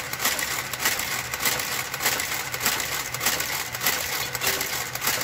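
Brother KG-93E garter carriage driving itself along a knitting machine's needle bed, a rapid, irregular clatter of small mechanical clicks as it works the needles one by one, over a faint low hum.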